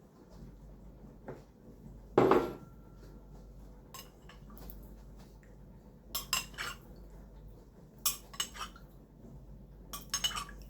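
Kitchen utensils clinking against dishes in short scattered clusters, with one dull knock about two seconds in as the loudest sound.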